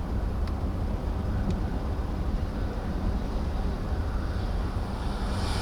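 Gusty cold outflow wind from a thunderstorm buffeting the microphone, a rough low rumble, with a hiss building up near the end.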